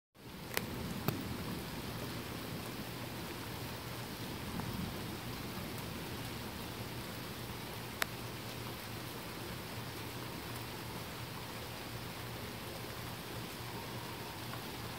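Steady rain falling during a thunderstorm, an even hiss with a few sharp ticks, the clearest about eight seconds in.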